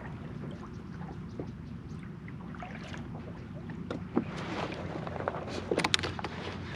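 Water lapping against a plastic kayak hull, with wind on the microphone. A few sharp clicks and taps come near the end.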